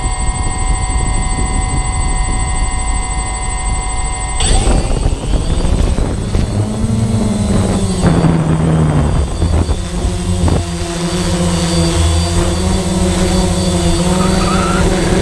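Small drone's electric motors and propellers: a steady whine while spinning on the ground, then about four and a half seconds in the sound turns rougher and shifts in pitch as it throttles up and lifts off. The pitch keeps wandering with the throttle as it flies.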